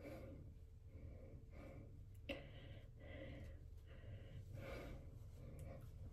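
Near silence: faint breaths and soft rustling as hands press a glued lace-front wig down onto the head, with one small click about two seconds in.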